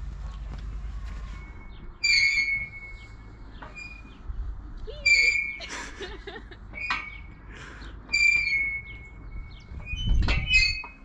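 Playground swing squeaking as it swings back and forth: a short, high metal squeak about every second and a half.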